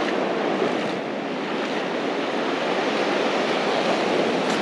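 Ocean surf washing in over flat sand: a steady rush of small waves and shallow water running up the beach at high tide.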